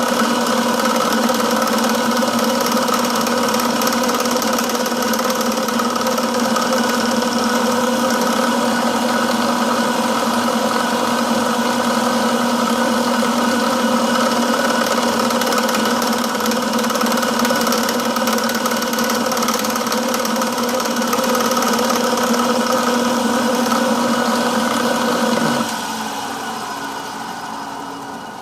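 Milling machine motor and spindle running steadily with a constant hum; near the end it is switched off and winds down.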